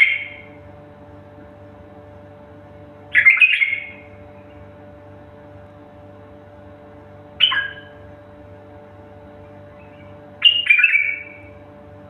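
A bird giving short calls, each under a second, every three to four seconds, over a steady low electrical hum.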